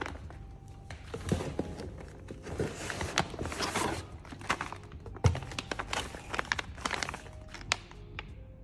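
Plastic meal pouches crinkling and rustling as they are handled and lifted out of a cardboard box, in quick irregular crackles. A dull thunk sounds a little after five seconds in.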